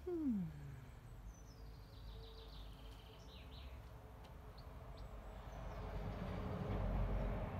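A short falling tone right at the start, then a songbird singing a phrase of quick high notes that step down in pitch, over a low steady hum that swells into a rushing noise near the end.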